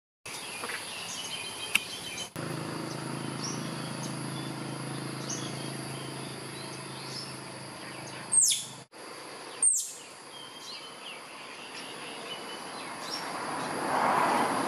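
Outdoor tree-canopy ambience: a steady high insect buzz with scattered small bird chirps. Past halfway come two loud, sharp calls, each sweeping quickly down in pitch, a little over a second apart. A rushing noise swells in near the end.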